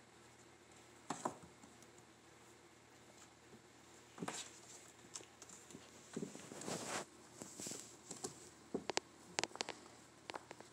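Faint, scattered patter, scratching and rustling of young kittens scrambling and play-fighting on a fabric couch. Louder scuffles come about a second in and about four seconds in, and a quick cluster of sharp clicks comes near the end.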